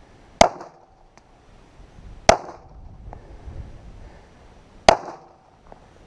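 Three single shots from a Glock 42 .380 ACP pistol, a couple of seconds apart, each a sharp crack with a brief tail.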